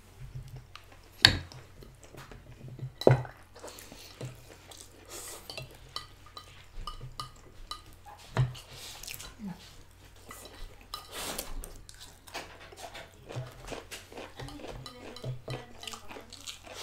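Wooden forks clinking and scraping against ceramic plates while spaghetti is eaten, with three sharp knocks about a second, three seconds and eight seconds in. Between them there are lighter taps and soft eating and slurping sounds.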